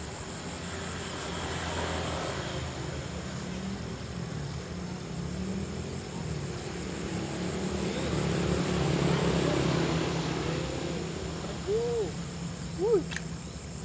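A passing motor vehicle: its engine grows louder towards the middle and then fades. Near the end come two short notes that rise and then fall.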